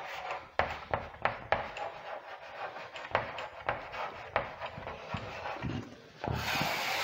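Chalk tapping and scraping on a chalkboard as words are written by hand: a string of short, sharp strokes and ticks, then a longer, louder scrape about six seconds in.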